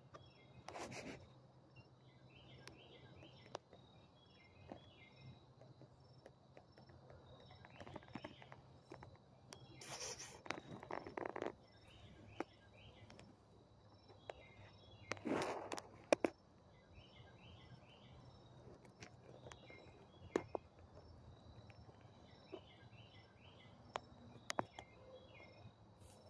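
Faint outdoor ambience of repeated short chirping trills every couple of seconds over a steady high whine, with a few brief rustling noises, the longest about ten seconds in.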